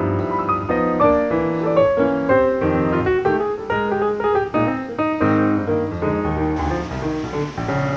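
Background piano music: a melody over chords, notes changing several times a second.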